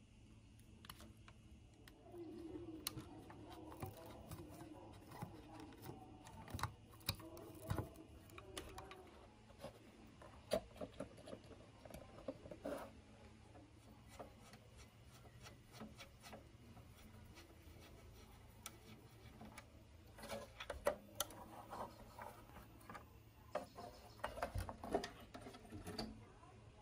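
Faint scattered clicks, knocks and rubbing from hands handling the plastic cabinet, wiring and parts of an old CRT television being taken apart, busiest about two-thirds of the way through and again near the end.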